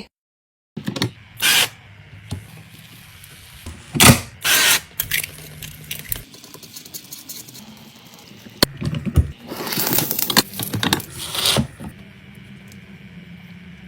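Plastic meat-shredder bowl being twisted by hand, rattling and scraping in irregular bursts, loudest about 4 seconds in and again around 10 to 11 seconds.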